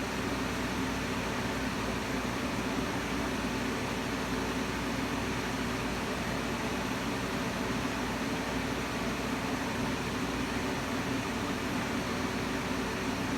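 Steady hiss with a low hum, like a fan or air conditioner running.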